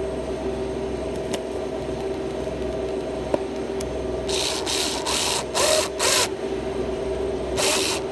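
Ryobi BDX-1 3.6 V cordless screwdriver turning a step drill bit over a steady hum. From about halfway in, the bit cuts into 4 mm polycarbonate sheet in five short bursts of high scraping noise.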